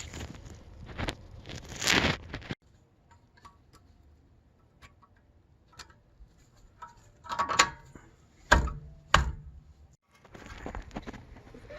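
Metal parts and tools being handled at a car's rear brake caliper: rustling and clicking, then a few sharp knocks and clicks in quick succession about eight seconds in, the loudest sounds here.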